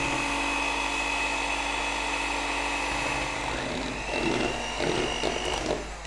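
Electric hand mixer running steadily, its beaters whipping cream in a plastic bowl. About three and a half seconds in the motor whine rises a little in pitch, and the beaters clatter and scrape against the bowl before the mixer cuts off near the end.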